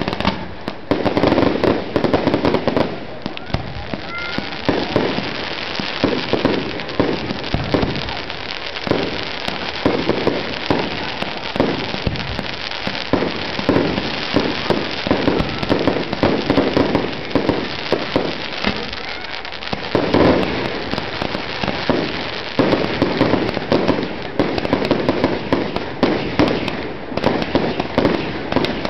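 Fireworks display going off: a rapid, unbroken string of bangs and crackles from bursting aerial shells.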